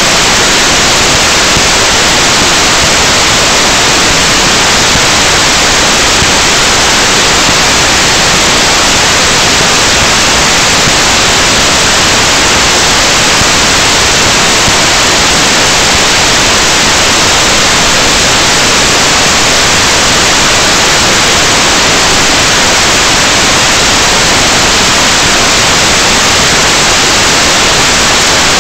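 Loud, steady static hiss from an analog FPV video link's audio channel, unchanging throughout, with no engine or other sound audible over it.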